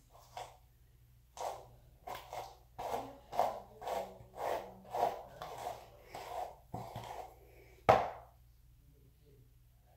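Hairbrush dragged through long curly hair in repeated scraping strokes, about two a second, with one louder stroke near the end.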